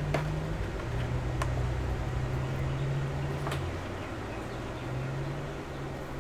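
A few light, sharp clicks of a tool on a laptop's plastic case, over a steady low hum.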